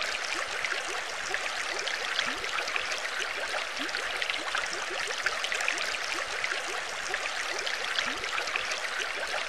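Steady bubbling, trickling water ambience, full of small rising bubble plinks.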